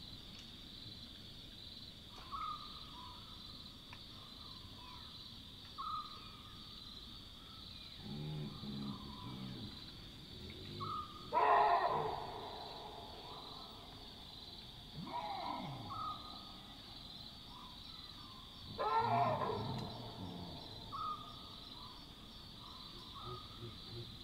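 Chacma baboons giving two loud alarm barks, about halfway through and again near the end, with lower grunts in between, over a steady chirring of night insects. Such barks are typically given when the troop is alerted to a nearby predator.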